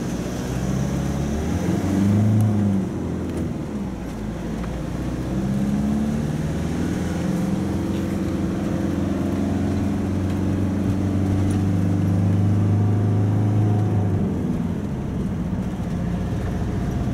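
A campervan's engine and road noise heard from inside the cab as it drives through traffic. The engine note rises as it accelerates about two seconds in, then holds a steady hum before easing a little near the end.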